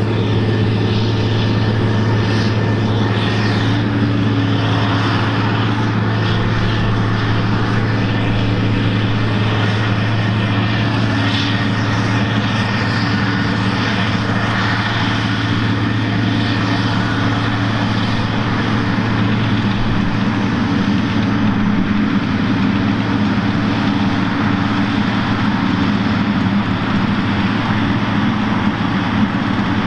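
Heavy diesel engine of a CAT Challenger tractor pulling a scraper pan, running steadily with a constant low hum and no change in pitch.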